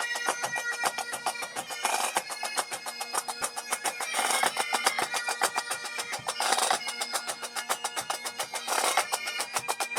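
Pipe band playing: Highland bagpipes sounding a melody over steady drones, with rapid snare drumming and a louder accent about every two seconds.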